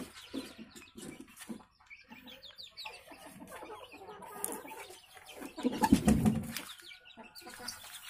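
Domestic chickens clucking, with scattered short high peeps; louder for a moment about six seconds in.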